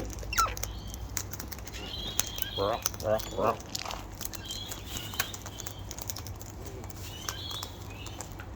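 Cockatoos feeding at close range: a scatter of sharp clicks and taps as they eat, with three short, soft calls about three seconds in and a few brief high chirps.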